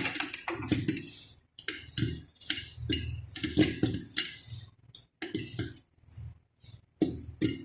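Popcorn kernels popping in hot salt inside a covered pot: about fifteen irregular, separate pops, a few each second, with gaps between them.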